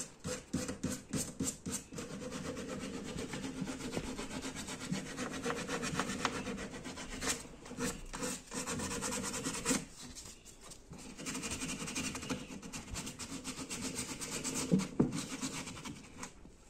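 Plastic chair leg being hand-sanded with a sanding sponge: quick back-and-forth rubbing strokes, smoothing the repaired break, with a few short pauses.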